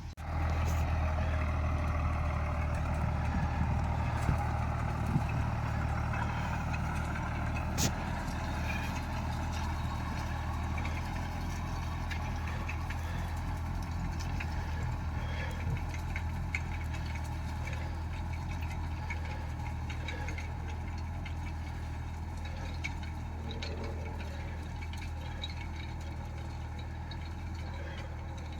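Tractor diesel engine running steadily, with a single sharp click about eight seconds in.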